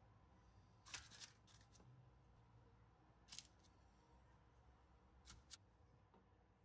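Near silence: room tone broken by a few faint, short crisp clicks or rustles, about six in all, in three small groups.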